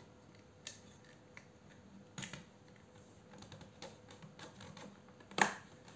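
Irregular light clicks and taps of a small metal tool working in the plastic battery socket of an old Ryobi 9.6 V cordless drill, whose terminals are badly rusted. The loudest tap comes near the end.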